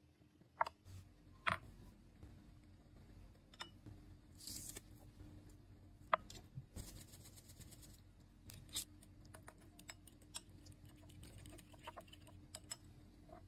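Kitchen prep handling sounds: a few sharp clicks and knocks, a metal garlic press clicking and squeezing with short scraping rasps, then a spoon clicking and scraping against a glass bowl in small quick taps while stirring a thick yogurt sauce.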